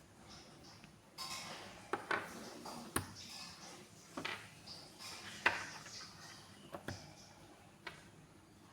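Plastic building-block pieces being handled and snapped together: a series of sharp clicks and clatters, the loudest about five and a half seconds in, with light rustling between.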